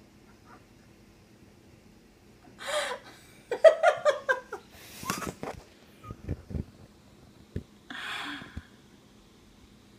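People laughing in short bursts and breathing out, with a few low thumps.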